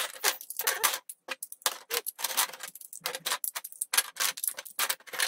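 Hard plastic GraviTrax curved tiles clicking and clacking against each other and the tabletop as they are counted out and stacked. The clicks come quickly and irregularly.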